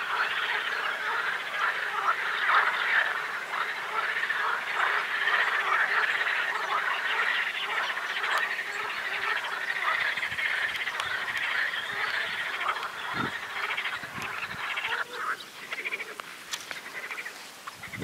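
Loud chorus of many pond frogs croaking together, a dense continuous pulsing that thins out near the end.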